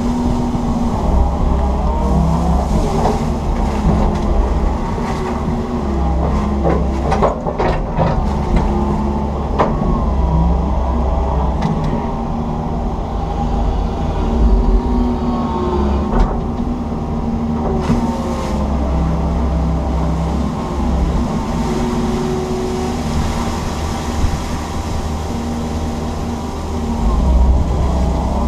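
Komatsu PC160 excavator's diesel engine and hydraulics running steadily, heard from inside the cab, their whine rising and falling as the boom and ditch bucket dig and lift wet weeds and silt. A few sharp clanks, the strongest about 7 to 8 seconds in.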